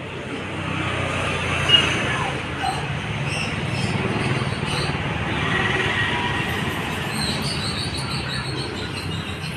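Steady background din with a low rumble, and a brief sharp knock about two seconds in.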